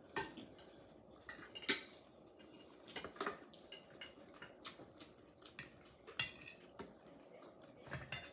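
Eating utensils clicking and clinking against clam and oyster shells and dishes: scattered light taps, the loudest a little under two seconds in.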